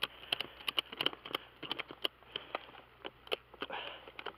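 Irregular clicks and knocks, several a second, from a ratchet strap being hooked and worked tight around a beehive box.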